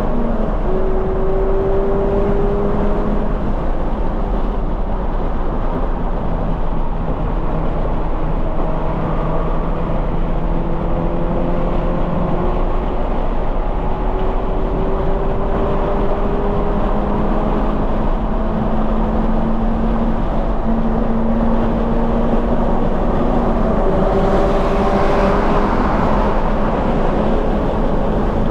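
Onboard sound of a 2020 Toyota 86 at track speed: its 2.0-litre flat-four boxer engine, breathing through a Corsa cat-back exhaust, pulls hard with its pitch climbing slowly between gear changes, over heavy rushing road and wind noise. A swell of higher rushing noise comes near the end.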